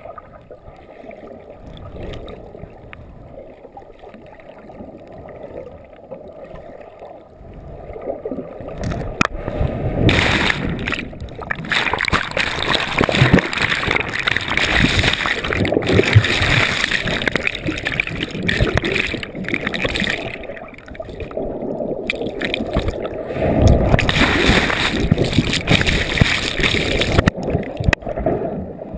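Water gurgling and sloshing around a submerged camera. It is muffled and quiet for the first several seconds, then turns louder bubbling and splashing from about ten seconds in, as bubbles stream past the lens.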